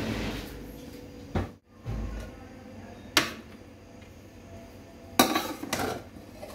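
Metal perforated skimmer scraping and knocking against an aluminium cooking pot and a plate while rice is scooped out and served: a scrape at the start, two single clinks, and a cluster of clatters near the end, the loudest.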